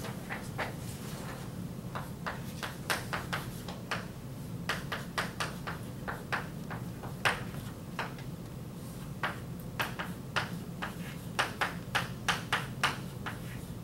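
Chalk tapping and clicking on a blackboard while writing: an irregular run of short, sharp taps, coming thickest in the last couple of seconds, over a steady low hum.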